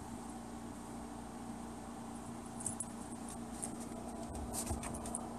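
A small dog's claws clicking and scratching on a tile floor, in light irregular ticks starting about two and a half seconds in, over a steady low household hum.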